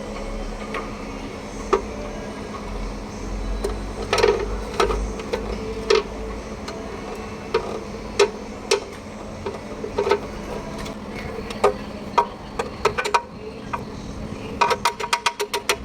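Metal tools knocking and clinking on parts during repair work, irregular single strikes over a steady low hum, then a quick run of clicks near the end.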